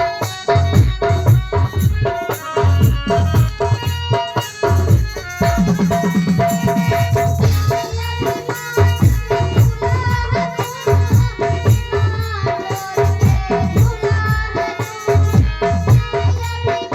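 Indian song music with a steady, pounding drum beat, rattling percussion and a held melody.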